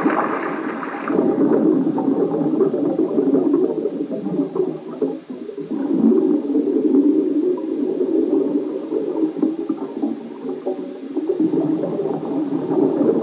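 Underwater bubbling rumble of a cave diver's exhaled air venting from the breathing set, in surges with two brief lulls.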